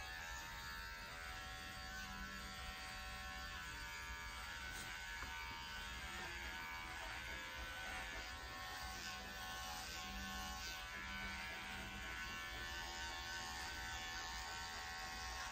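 Electric dog grooming clippers running with a steady buzzing hum as they are worked over a Scottish Terrier's body coat.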